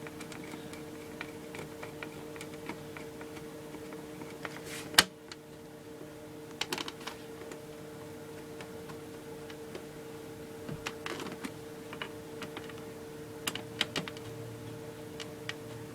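Small scattered clicks and ticks of a screwdriver driving screws to fasten a hard drive back into an old desktop computer's case, with one sharper click about five seconds in and clusters of clicks near the end, over a steady low hum.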